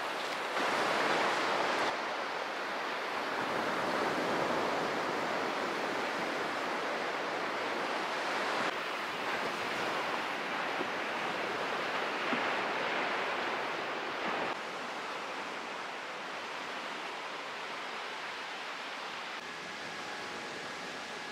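Sea waves washing on the shore: a steady rushing that swells and eases, dropping suddenly in level a few times.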